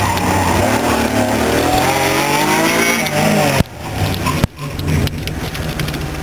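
Naturally aspirated 3.0-litre V6 of a 1993 Dodge Stealth R/T, heard from inside the car, revving hard with the pitch rising and falling through the last corners. About three and a half seconds in the engine note drops away sharply as the throttle is lifted, then settles to a lower, quieter run as the car slows past the finish.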